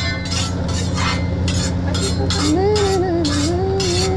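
Metal hibachi spatula scraping and tapping across a steel teppanyaki griddle in repeated short strokes, about two a second, as fried rice is worked into a mound. A steady low hum runs underneath, and about halfway through someone hums a few wavering notes over it.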